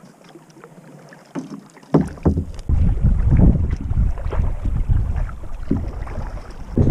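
Kayak paddle strokes with water splashing. About two seconds in, heavy wind buffeting the microphone sets in as a loud, uneven low rumble over the paddling.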